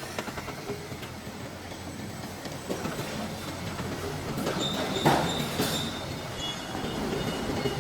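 Tube roll forming machine running, a steady metallic rattle and clatter of the line. A thin high squeal comes and goes from about halfway in, and there is a sharper clank about five seconds in.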